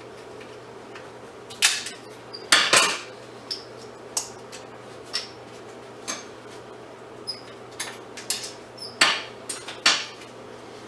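Metal parts of a fluorescent light fixture clinking and clanking as it is taken apart by hand for scrap. Scattered sharp clinks, a few ringing briefly, with the loudest clanks about two seconds in and again near the end.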